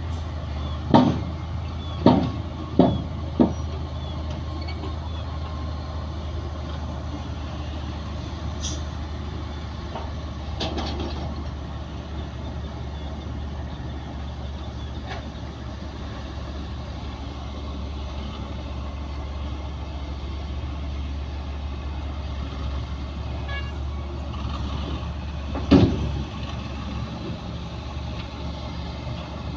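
Bulldozer's diesel engine running steadily under load, with a cluster of sharp metallic knocks over the first few seconds and one more near the end.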